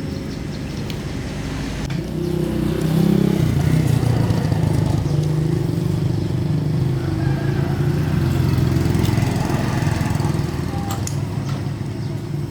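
An engine running steadily, growing louder about two seconds in and then holding at an even pitch.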